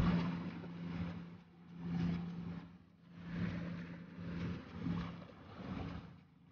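Boat engine running steadily as a low hum, under a rushing noise that swells and fades about every second and a half.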